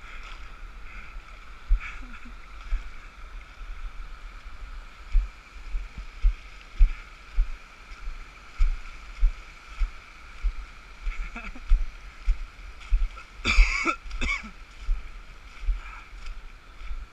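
Shallow water rushing over smooth granite as a person slides down it, with a steady wash of water noise. Short low thumps and knocks of the body and camera bumping over the rock come more often from about five seconds in, and a sharp loud burst of noise comes about thirteen seconds in.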